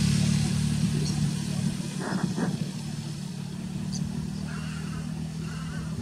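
A motor engine running with a steady low hum, slowly fading over several seconds. Two short, sharper sounds come about two seconds in.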